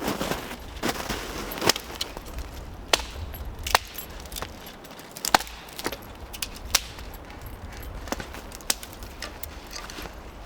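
Wood cracking and snapping in sharp, irregular cracks, about a dozen over several seconds, over a low rumble.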